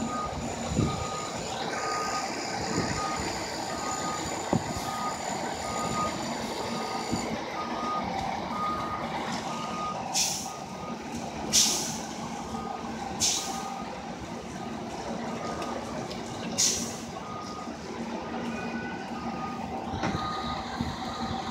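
Fire engine reversing alarm beeping at an even pace as the rig backs up, over its diesel engine running. Four short, sharp air-brake hisses come in the middle.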